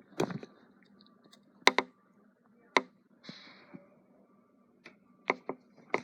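A handful of sharp clicks and taps a second or more apart, with a brief soft hiss about halfway through: handling noise.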